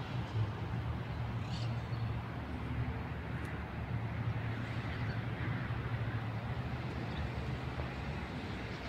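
Ram pickup's HEMI V8 engine idling with a steady, low, even hum.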